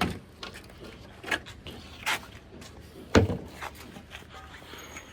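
A few separate knocks and clunks of handling or striking something hard, three main ones, the loudest a little past three seconds in.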